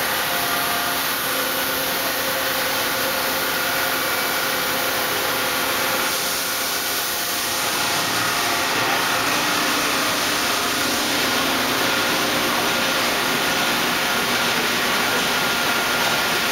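Ikegai NB130P CNC horizontal boring mill running: a steady hiss with several constant whining tones that holds at the same level throughout.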